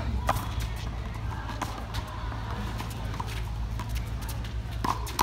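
Handball rally: a small rubber handball slapped by hand and smacking off a concrete wall, sharp strikes with a short echo coming irregularly, several over a few seconds. A steady low rumble sits underneath.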